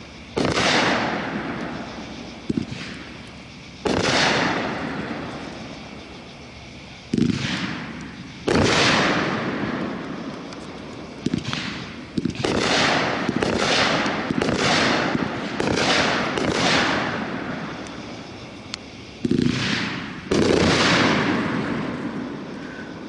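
A 500-gram, 26-shot consumer firework cake (Hardcore Pyro 'Night Train') fires shot after shot, about fifteen in all. Each sharp report is followed by a second or two of fading burst noise, and a quick run of shots comes in the middle.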